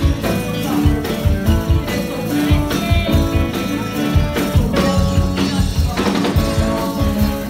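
A live rock band playing: electric guitar, electric bass and drum kit with cymbals, and a singer on a microphone.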